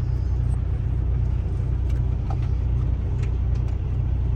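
Kenworth T680 semi truck's diesel engine idling, a steady low rumble heard from inside the cab, with a few light clicks from work on the steering wheel hub.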